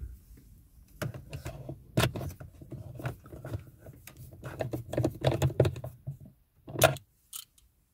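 Screwdriver tightening the screws of a dashboard display unit into its plastic mount: an irregular run of small clicks and scrapes, ending in a sharper click near the end.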